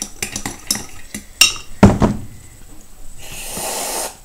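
A kitchen utensil clinking and knocking against a plastic jug while the egg-white mixture is stirred. There is a quick run of light clicks first, then two louder knocks about one and a half and two seconds in. About a second of hissing noise follows near the end.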